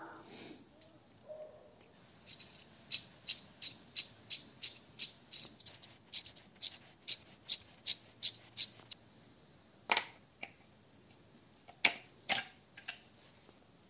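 Light metallic clicks from the parts of a pneumatic drill's air motor and geared spindle being handled and fitted together, at about three clicks a second for several seconds, then a few louder, sharper clicks near the end.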